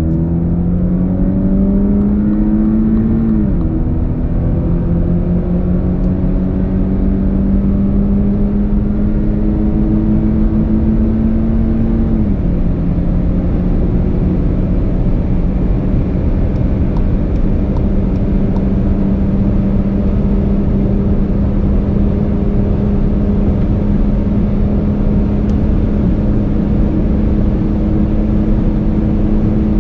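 2.0-litre turbocharged four-cylinder car engine under full throttle at high speed, its pitch rising through the gears with two upshifts, about 3 s and 12 s in. After the second it climbs only slowly as the car nears top speed, with road and wind noise underneath.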